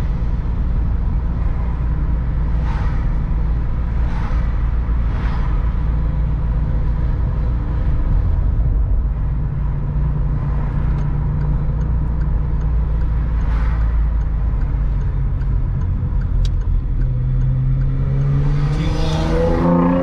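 Steady road and engine rumble inside a Citroën's cabin, with other cars swishing past a few times. Near the end a sports car comes up and overtakes, its engine note rising in pitch as it accelerates past.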